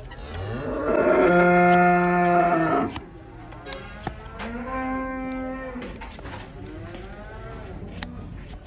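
A large farm animal calling twice: a long, loud call that rises into a held note, then a shorter, higher call about two seconds later. A few short clicks from the hoof knife paring the hoof come in between.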